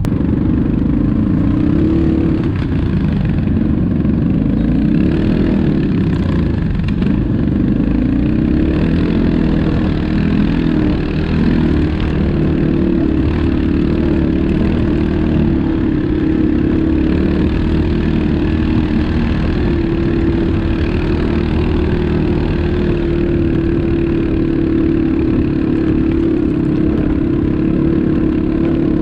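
ATV engine running steadily, its pitch wavering up and down in the first several seconds and then holding level.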